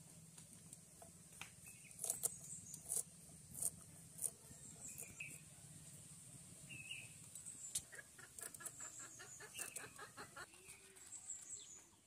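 Chickens clucking, with short calls scattered through and a quick run of repeated clucks toward the end. A few sharp clicks and knocks, the loudest sounds, come a couple of seconds in.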